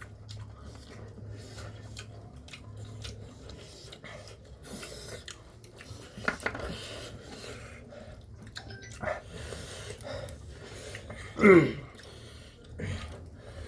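A person chewing and eating, with small mouth and dish clicks over a steady low hum. About three quarters through comes one short, loud vocal sound falling in pitch.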